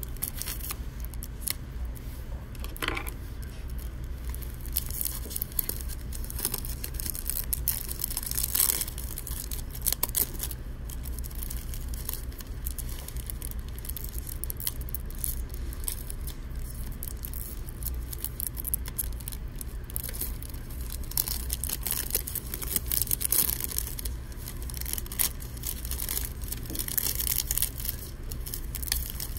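Cellophane shrink wrap being picked at, peeled and torn off a plastic DVD jewel case: irregular crackling and crinkling of the thin plastic film, over a steady low hum.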